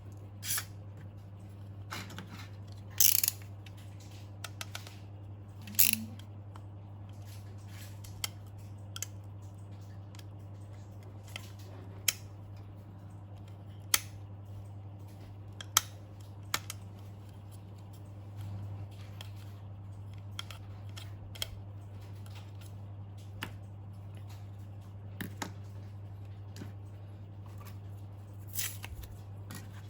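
Scattered sharp clicks and short snips, a second or more apart, over a steady low hum: small tools and parts being handled on a workbench.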